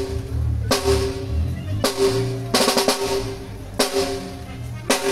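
Single drum strikes at a band sound check, about one a second, each ringing on at a steady pitch until the next. A quick flurry of strokes comes just before the middle.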